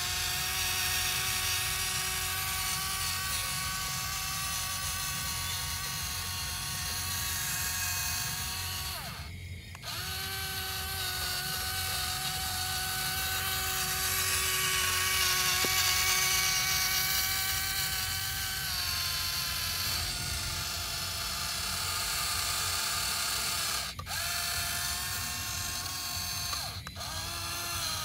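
Small electric gear motor of an RC toy tractor whining steadily as it drives, with a gearbox buzz underneath. The whine cuts out briefly three times and drops slightly in pitch partway through.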